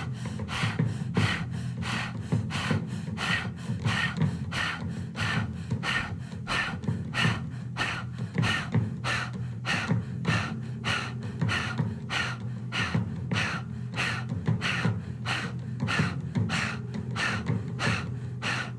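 Forceful rhythmic breathing in and out through the open mouth with the tongue out, Kundalini yoga style, about two breath strokes a second.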